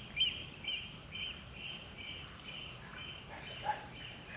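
A small bird chirping over and over, short high chirps about three a second.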